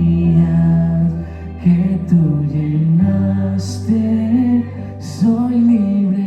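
Live worship band playing a song with a singer, sustained bass notes and keyboard or guitar chords.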